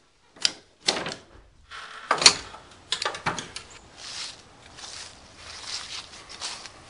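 A hand tool clicking sharply a few times as it works on PEX tubing, then several sharp clicks and footsteps through dry leaves, about one step every three-quarters of a second.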